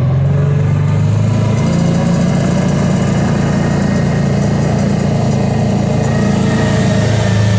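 Engine of a Kawasaki Teryx side-by-side running steadily at low, even revs.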